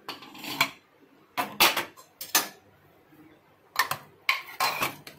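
Pressure cooker lid lifted off, then a steel spoon clinking and scraping against the inside of the metal cooker as thick rice kheer is stirred, in three short bursts of clatter with quiet gaps between.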